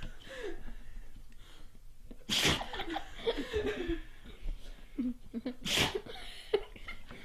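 A dog sneezing: two sharp sneezes, about two and a half seconds in and again near six seconds, with softer short sounds between them.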